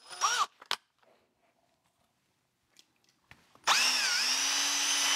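Electric drill with a paddle mixer starting near the end, spinning up and then running at a steady pitch as it stirs plaster slurry in a bucket. Before it, a few brief knocks, then quiet.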